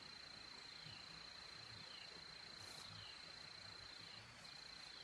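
Faint insect drone: a steady high-pitched tone that drops out briefly near the end, with a short falling chirp repeating about once a second.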